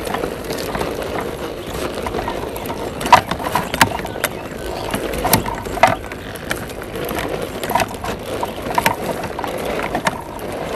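Drivetrain of a radio-controlled scale crawler truck whirring steadily as it crawls over dry dirt clods, its motor and gears making a steady whine. Sharp clicks and knocks from the tyres and chassis striking clods come a few times in the middle.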